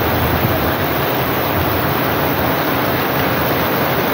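Heavy rain pouring down steadily onto a flooded street, a dense, even rushing noise with no breaks.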